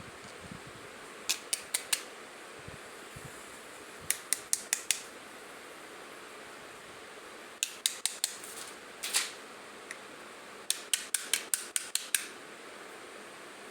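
Short runs of sharp, light clicks and taps, several a second in groups of four to eight, from the small hard pieces of a miniature toy kitchen set being handled during unboxing.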